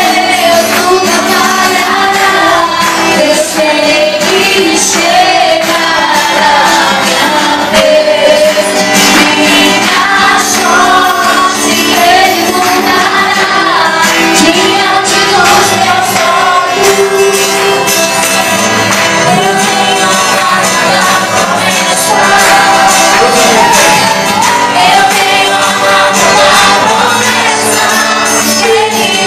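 Live gospel worship music played loud through a PA: a man and a woman singing to acoustic guitar.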